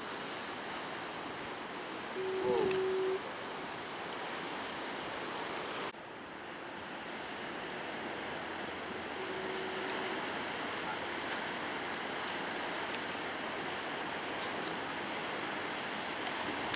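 Steady wash of heavy ocean surf, with some wind on the microphone. About two seconds in, a horn sounds one steady note for about a second, and more faintly again near ten seconds.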